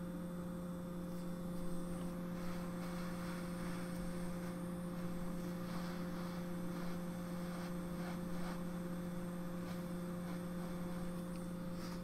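Steady electrical hum with a faint hiss from microsoldering bench equipment, and a few faint small handling sounds.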